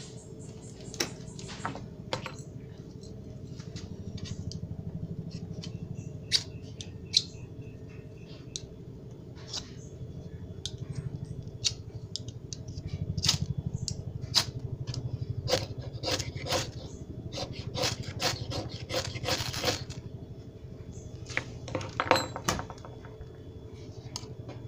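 Scattered sharp clicks, knocks and short scrapes on and around a metal pan as fatwood shavings on it are lit, busiest about two-thirds of the way through and again shortly before a small flame catches. A steady low hum runs underneath.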